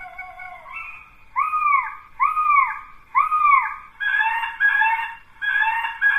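Leaven LS-2020B bioacoustic bird repeller playing recorded bird cries through its loudspeaker: three arched, falling calls about a second apart, then from about four seconds in a run of harsher calls. The recordings imitate the cries of large birds of prey and alarm calls, to scare off pest birds.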